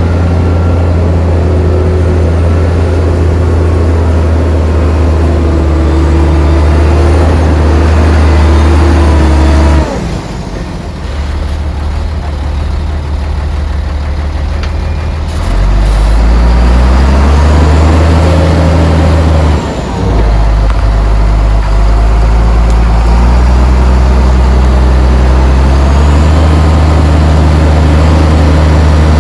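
Heavy diesel engine of an earthmoving machine working hard. It eases off about ten seconds in, then revs back up a few seconds later with its pitch climbing in steps, and runs hard again with a brief dip.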